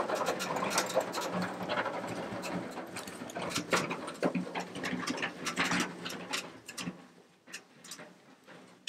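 A large translucent plastic sheet crackling and rustling as it is dragged across grass. The crackle grows fainter as it is pulled away, leaving only scattered faint clicks near the end.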